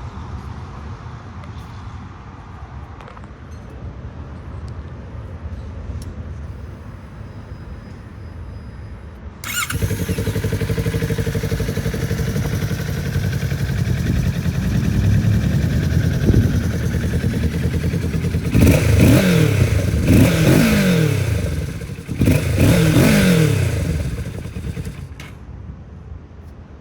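Kawasaki Ninja 650's parallel-twin engine starting about a third of the way in, then idling. It is revved in two bursts of quick rises and falls in pitch, then dies away near the end.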